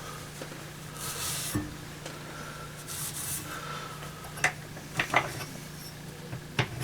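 Oiled Lansky hone stroked along a steel saw-blade edge: two short scraping strokes about two seconds apart, followed by several light clicks, over a steady low hum.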